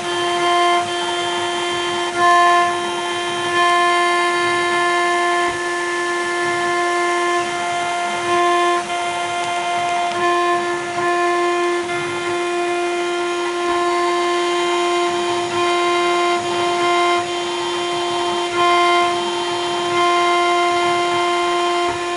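CNC router's 1.5 kW spindle whining at a steady pitch while its cutter engraves a spinning acrylic cylinder on the rotary axis. The whine gets briefly louder every few seconds.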